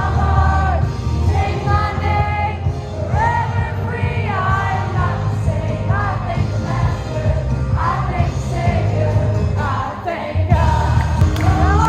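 Pop music with a singing voice over a steady bass line, dipping briefly near the end.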